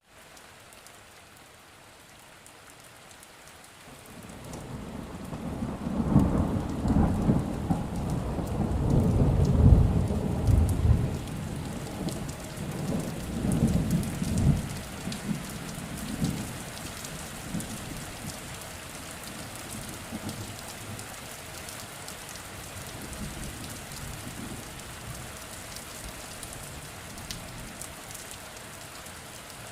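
Steady rain falling with scattered drop ticks, while a long roll of thunder builds a few seconds in, peaks mid-way and rumbles away, leaving the rain alone.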